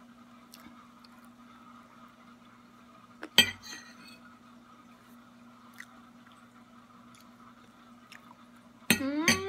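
A metal fork on a ceramic plate while cake is being eaten, with one sharp clink about three and a half seconds in and a few faint ticks. Near the end there is a short pleased hum from the eater, mouth full of cake. A faint steady hum sits underneath throughout.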